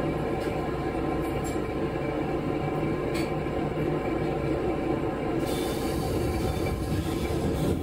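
KiHa 11 diesel railcar's engine running with a steady hum and a few steady tones. A steady hiss joins about five and a half seconds in.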